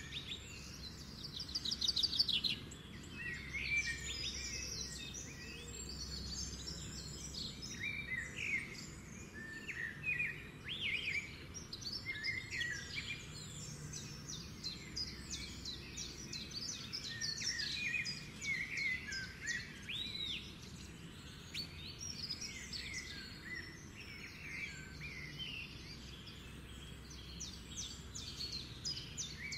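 Several small songbirds chirping and singing, with short calls and quick trills overlapping throughout, over a low steady rumble.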